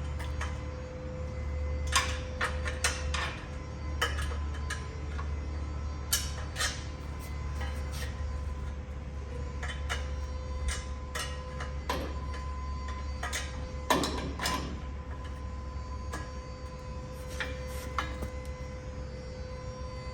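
Irregular metallic clinks and knocks of hand tools and exhaust parts being handled and fitted, with a few louder clanks, over a steady low hum.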